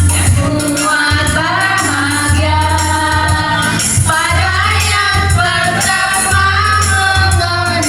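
Music: a song with a sung melody over a steady bass line.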